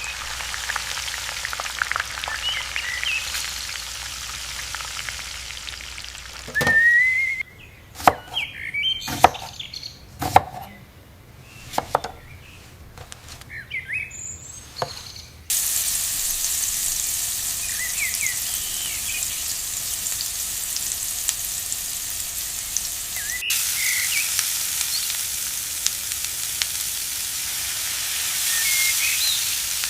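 Food frying with a steady sizzle. About a quarter of the way in it drops back for several seconds, during which a few sharp knocks and clicks sound; about halfway through it starts again louder and holds steady. Birds chirp faintly throughout.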